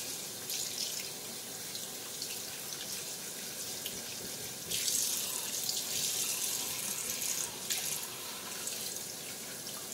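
Kitchen tap water running into a stainless steel sink, splashing over a rack of raw pork spare ribs and gloved hands as fat is trimmed off under the stream. The splashing grows louder for about three seconds in the middle.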